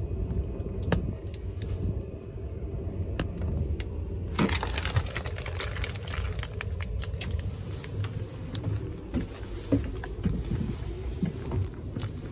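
Running noise inside a passenger train: a steady low rumble with scattered clicks and knocks, and a brief burst of louder rushing noise about four and a half seconds in.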